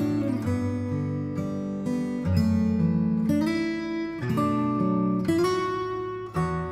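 Background music: an acoustic guitar strumming chords, changing chord about once a second.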